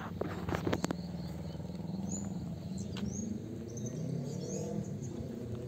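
A few footsteps through overgrown weeds in the first second, then small birds chirping faintly over a steady low rumble.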